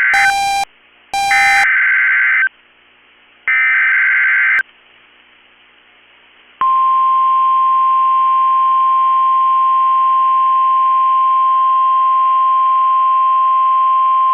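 NOAA Weather Radio Emergency Alert System transmission: three short bursts of digital data tones (the SAME header that encodes the alert), then after a pause of about two seconds the steady 1050 Hz warning alarm tone starts and holds. Together they signal a tornado warning about to be read out.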